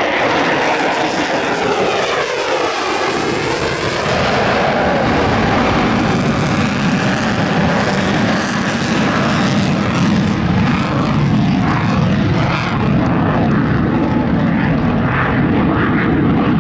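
Lockheed Martin F-22 Raptor's twin Pratt & Whitney F119 turbofans on afterburner during a low, high-power flying display: loud jet noise with a falling, sweeping whoosh over the first few seconds, then a steady deep, crackling rumble.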